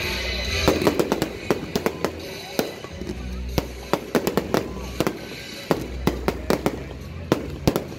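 Fireworks display: a rapid, irregular run of sharp bangs and crackling pops from aerial bursts, often several in quick succession.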